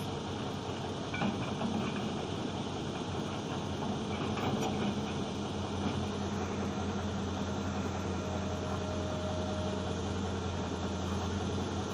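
Heavy diesel engine running steadily with a low, even drone, with a few faint knocks in the first half.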